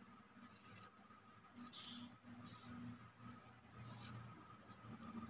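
Near silence: a few soft rustles and clicks of cotton fabric being handled, over a faint steady hum.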